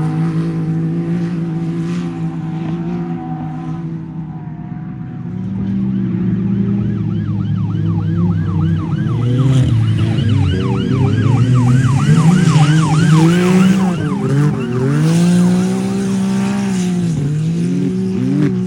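Off-road race vehicle engine running and revving up and down. From about seven to sixteen seconds in, a siren-like yelping tone repeats about three times a second.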